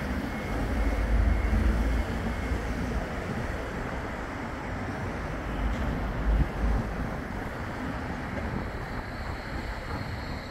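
Wind buffeting the microphone, with heavy rumbling gusts about a second in and again around six seconds, over the faint electric whine of a Bombardier Flexity 2 tram. The tram stands at the platform and starts to move off near the end.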